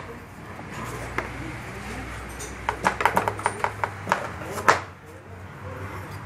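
Clicks and knocks of plastic engine-bay parts being handled: the air filter housing and the intake hose. There is a quick run of them from about three seconds in, the loudest near five seconds, over a low steady hum.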